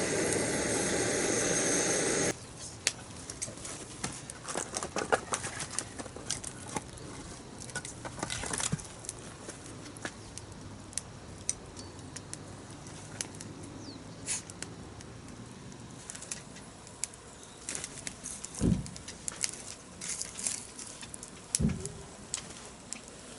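Burning wood crackling, with sharp pops and snaps at irregular intervals and two dull low thumps near the end. It is preceded by a loud, steady rush that cuts off suddenly about two seconds in.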